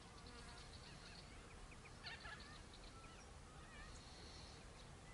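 Faint birds chirping and trilling, with a quick run of sharper notes about two seconds in, over a low, faint rumble.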